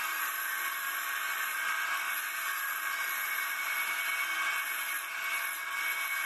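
Homemade wood copy lathe running steadily, its cutting head working a spinning wooden blank as it travels along the piece following the template; a continuous machine whine with several steady high tones.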